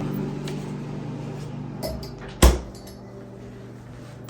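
A single sharp knock about two and a half seconds in, over a low steady hum that fades away.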